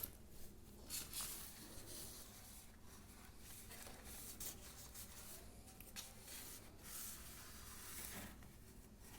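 Faint, intermittent scratching and rubbing of cardboard as circles are traced on it with a pen and cut out into small pieces.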